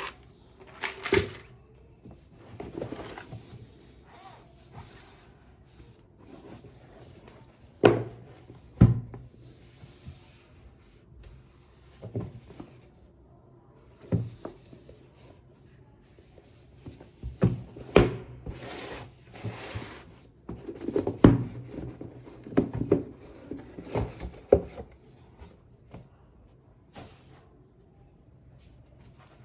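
Irregular knocks and thunks with short rustles between them: keyboard parts and packaging being handled and set down on a desk.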